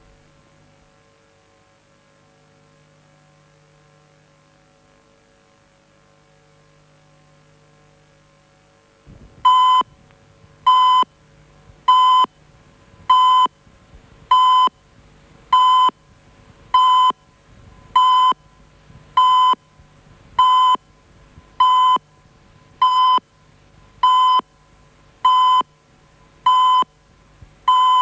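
Faint hum, then about nine seconds in a short, high electronic beep starts repeating steadily, a little less than once a second. It is Soviet Central Television's sign-off warning tone, telling viewers to switch off their television sets.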